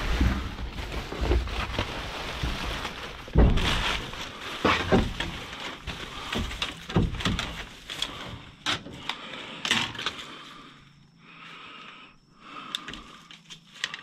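Rubbish being rummaged through in a dumpster: irregular knocks, crunches and clatter of things being shifted, loudest about three and a half seconds in and quieter in the last few seconds.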